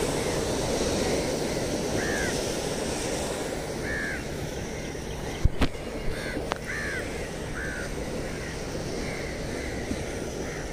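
Crows cawing, short calls every second or two, over a steady wash of surf. A few sharp clicks come about halfway through.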